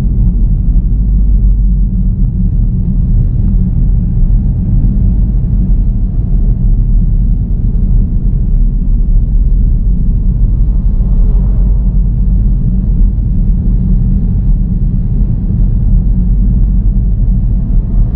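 Steady low rumble of a car driving along a road: tyre and wind noise, with a brief swell of higher-pitched noise about eleven seconds in.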